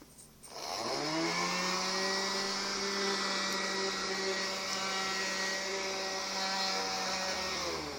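Cordless, battery-powered vacuum cleaner switched on about half a second in, its motor spinning up in pitch and then running with a steady hum.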